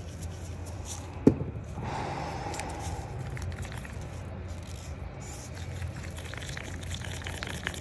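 Wooden craft stick scraping and tapping in a cup as pigmented epoxy resin is stirred, with one sharp click about a second in. A steady low rumble of trucks runs underneath.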